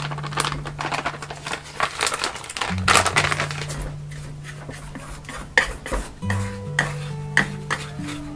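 A paper bag of kinako (roasted soybean flour) rustles as it is shaken out at first, then chopsticks scrape and tap against an aluminium tray with several sharp clicks in the second half. Background music with a low, steady bass line plays throughout.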